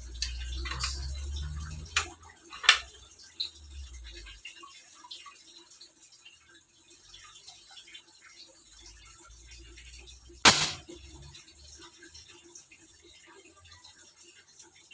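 Handling noise from a newly unboxed bullpup air rifle and its packaging: a few sharp clicks and knocks, the loudest about ten and a half seconds in, with low rumbling during the first few seconds.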